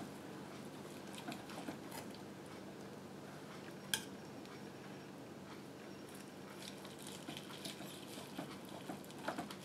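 Faint sounds of a knife carving slices off a roast pork: light scrapes and small clicks of utensils, with one sharper click about four seconds in, over a steady low hum.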